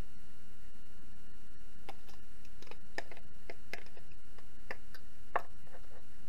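Light, irregular clicks and taps of plastic containers as food is tipped from a clear plastic tub into an IKEA Flottig plastic lunch box, starting about two seconds in, over a steady low hum.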